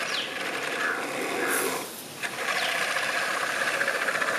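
Hydraulic pump of a 3D-printed 1/16-scale model excavator running with a steady buzzing whir while the boom and bucket move. The whir dips about two seconds in and picks up again.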